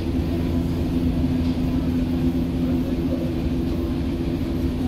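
Hamburg U-Bahn DT5 train running between stations, heard from inside the car: a steady hum from the electric traction drive over a constant low rumble of wheels on rail.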